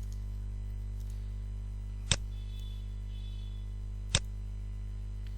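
Steady electrical mains hum with two sharp computer clicks about two seconds apart.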